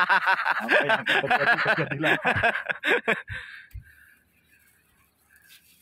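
A man's voice for about the first three seconds, then near silence.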